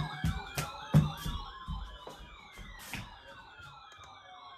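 Several sirens sounding at once, one warbling quickly up and down and others sliding slowly down in pitch, with a few sharp clicks in the first second. The sirens fade toward the end.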